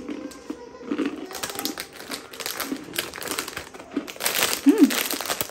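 Plastic biscuit packet crinkling and rustling as it is handled and torn open, in a dense run of crackles that gets louder near the end.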